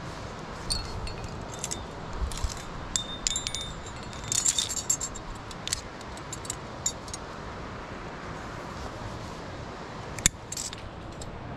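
Climbing rack of carabiners and metal gear jangling: a flurry of light metallic clinks with short ringing tones, busiest about four to five seconds in, then one sharp click near the end.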